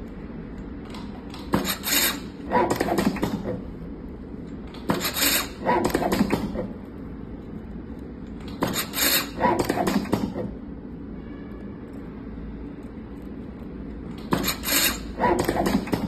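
Automatic tape wrapping machine running four short wrapping cycles on a copper wire coil, each a noisy burst of one and a half to two seconds, a few seconds apart.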